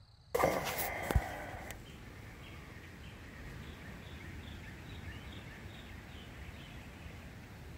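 A burst of handling noise with a sharp click in the first second and a half, then a steady background hiss with a small bird giving a quick series of short high chirps.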